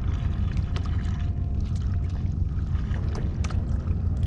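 Small waves slapping and splashing against the hull of a Hobie kayak in short, irregular knocks, over a steady low rumble of wind on the microphone.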